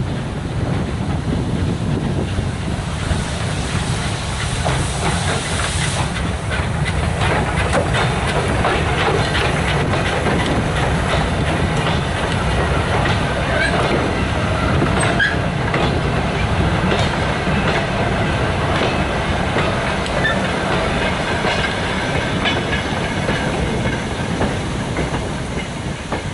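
Saddle-tank steam locomotive hauling a rake of Merry-Go-Round coal hopper wagons past: a spell of steam hiss a few seconds in, then the rhythmic clicking and clanking of the wagons' wheels over the rail joints as the train rolls by.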